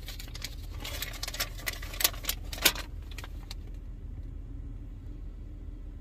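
Folded paper instruction leaflet being unfolded, rustling and crinkling in quick sharp crackles, the loudest about two and a half seconds in. The rustling stops a little past halfway, leaving a steady low hum.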